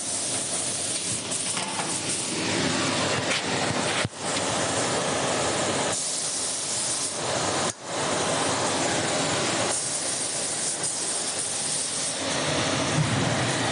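Industrial machinery running in a factory: a steady, noisy hum and hiss. It drops out abruptly twice and changes character every few seconds.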